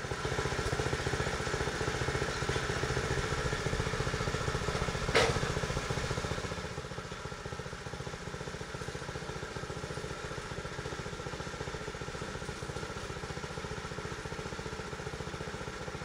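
Portable bandsaw sawmill's engine running steadily, louder for the first six seconds or so and then settling lower. There is a single knock about five seconds in.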